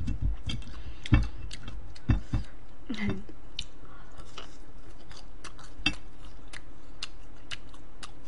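A person chewing crispy fried food close to a microphone. Many small crisp clicks and crackles run throughout, with a few louder soft thumps, the biggest about a second in.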